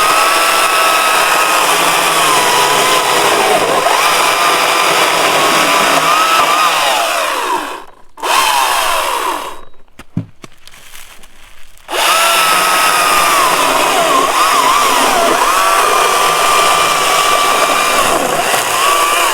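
Greenworks Commercial battery chainsaw running at full speed with a high, steady whine. Its pitch sags and wavers while it cuts wood. It stops twice, once for about two seconds in the middle, and winds down near the end.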